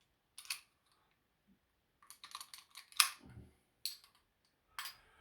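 Metal clicks and rattles of a padlock and its keys being handled: a few separate sharp clicks, a quick cluster of them about two to three seconds in with a soft knock, and single clicks near the end.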